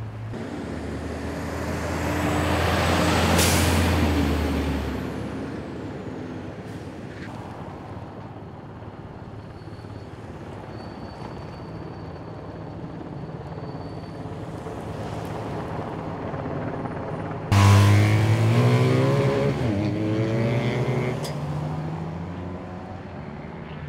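Procession of emergency vehicles, fire trucks and police cars, driving past one after another. Engines and tyres swell and fade as each goes by, loudest about three seconds in. About 17 seconds in, a louder pitched sound from a passing vehicle starts suddenly and slides down in pitch as it goes by.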